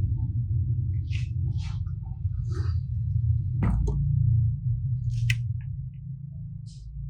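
Slime being squeezed and handled, giving a series of short wet squelches about a second apart and two sharp clicks near the middle, over a steady low hum.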